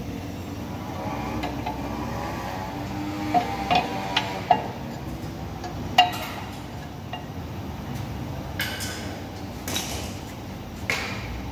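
Metal brake parts clinking and knocking as a brake disc is handled and fitted onto a car's rear hub: a handful of sharp clinks in the middle, some ringing briefly, the loudest about halfway through, then a few short scrapes near the end, over a steady low rumble.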